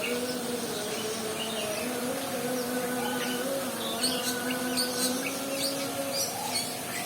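A flying insect buzzing steadily close by, its pitch wavering slightly, with short high bird chirps joining from about four seconds in.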